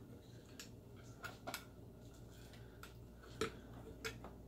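A few light, irregular metallic clicks as a rotisserie spit fork is slid down the spit rod and fitted into a chicken, the loudest about three and a half seconds in, over a faint steady hum.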